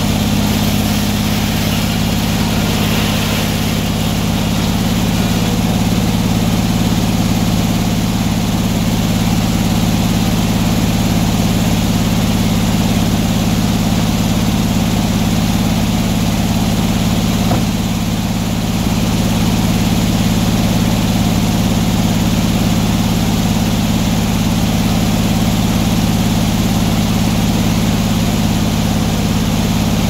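Circular sawmill running: the engine driving the big head saw drones steadily, and over the first few seconds the blade is cutting through a log, adding a rushing hiss.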